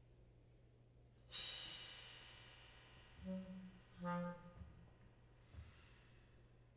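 Sparse, quiet contemporary chamber music. A cymbal is struck once and rings, fading away over a couple of seconds. A few short low clarinet notes follow.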